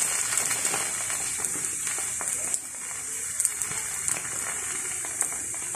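Msemen sizzling in a flat pan as the butter in its dough melts: a steady high hiss with scattered small crackles, easing slightly partway through.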